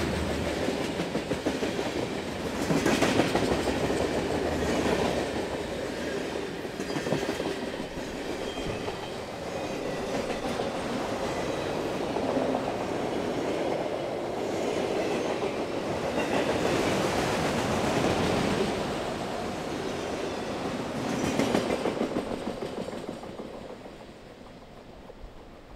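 Freight train cars rolling past at trackside, the wheels clattering over the rail joints. The sound fades away near the end as the last car passes and rolls off into the distance.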